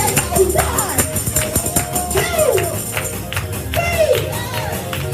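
Lively gospel church music with a tambourine shaken in a steady rhythm over a deep bass, while voices call out with rising and falling cries.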